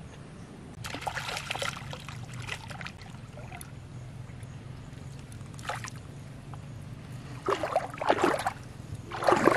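A hooked fish splashing at the water's surface in several short bursts, the loudest near the end.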